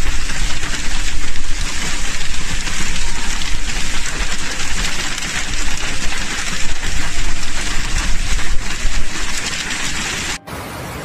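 Heavy rain pouring down on a road, a dense, loud hiss with a ragged, gusty rise and fall. Near the end it cuts abruptly to a quieter, steadier rain sound.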